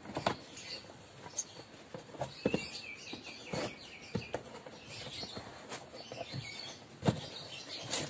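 Faint, scattered clicks and scrapes of fingers working a shoelace into the gap around a Sanyo washing machine's plastic pulsator. A bird chirps briefly about two and a half seconds in.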